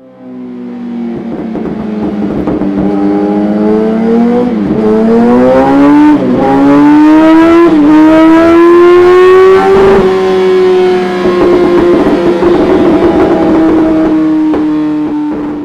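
Yamaha FZ1 Fazer inline-four through a Dominator aftermarket exhaust, accelerating hard with the engine note climbing. There are three short dips in pitch, like gear changes, about five, six and eight seconds in. It then holds high revs nearly steady until near the end.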